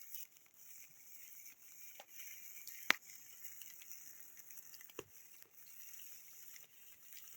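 Wood campfire crackling faintly: a few sharp pops over a soft hiss, the loudest about three seconds in and another about five seconds in.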